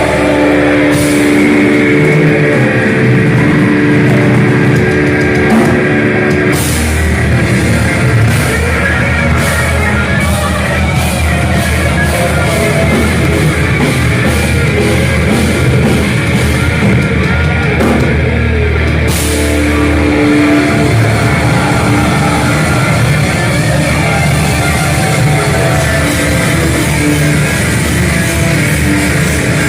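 Heavy metal band playing live: distorted electric guitars, bass and drums at full volume.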